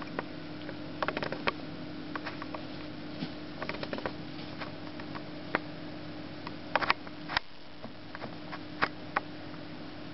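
Baby rabbit moving about on wood-shavings bedding: scattered light scratches, rustles and clicks, a few sharper ones a little past the middle, over a steady low hum.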